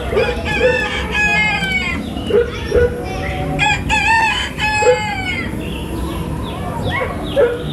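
Recorded farmyard sounds: a rooster crowing and hens clucking in a series of short, arching calls.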